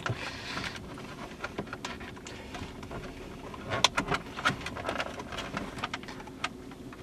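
Scattered light clicks, taps and scraping as a car radio's metal chassis is worked back into its dashboard slot with the interface box and wiring behind it, with a cluster of sharper knocks about four seconds in.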